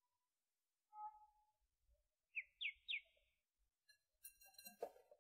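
Duckling peeping softly: one faint call about a second in, then three quick high peeps in a row, with a few faint clicks near the end.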